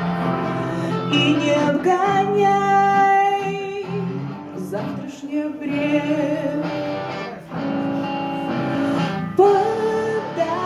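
Live song performance: a woman singing into a microphone over electric guitar accompaniment, with some long held notes, heard through a small club's PA.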